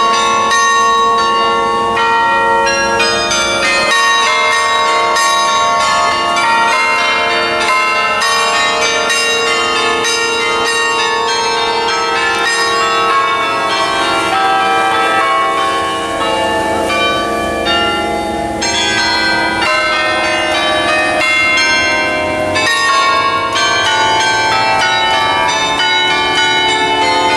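Bells ringing continuously: many overlapping struck tones that sound on and off again and again, loud and steady.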